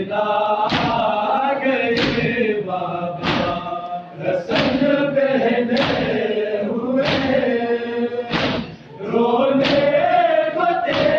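Crowd of male mourners chanting a Muharram noha together, punctuated by sharp, rhythmic matam strikes of hands beating on chests, about one every second and a quarter.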